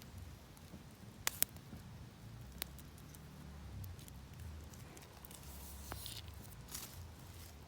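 Low steady rumble with a few sharp clicks or snaps, two in quick succession about a second in and another a second later.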